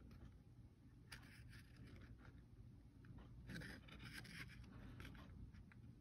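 Faint rustling and scraping of cardstock being handled and pressed between the fingers, a little louder for about a second around the middle.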